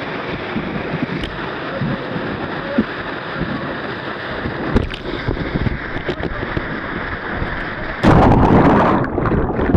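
Whitewater rapids rushing steadily around a raft. About eight seconds in, a wave breaks over the bow with a loud splash, and the sound turns duller after it.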